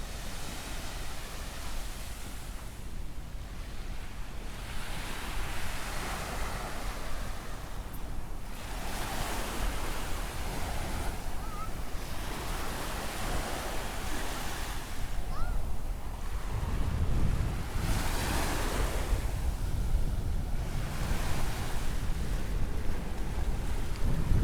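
Ocean waves breaking and washing in one after another every few seconds. Wind buffets the microphone, with a low rumble that gets heavier in the last third.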